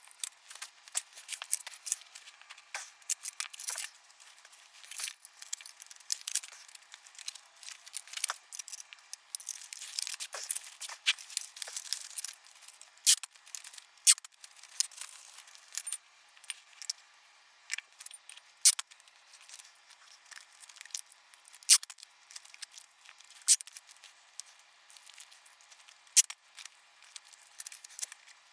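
Irregular sharp clicks, snips and small plastic and metal clatters, several a second, with a few louder strikes standing out, from hand work on a flat-screen TV being taken apart for its boards.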